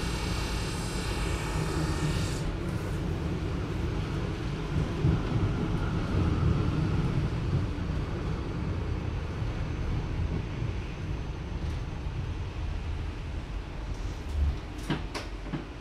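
Adtranz GT6M low-floor tram running, a muffled low rumble. A high-pitched whine of several steady tones from its electric drive cuts off about two and a half seconds in, and a couple of sharp clicks come near the end.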